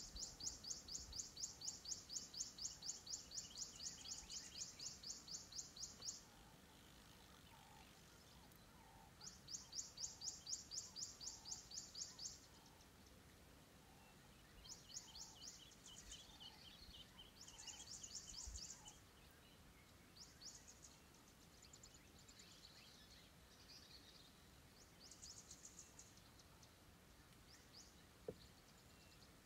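A high-pitched call of rapid, evenly spaced pulses, several a second, coming in bursts. A long run lasts to about six seconds in, another runs from about nine to twelve seconds, then come shorter, weaker bursts. Faint steady outdoor hiss beneath, and a single short click near the end.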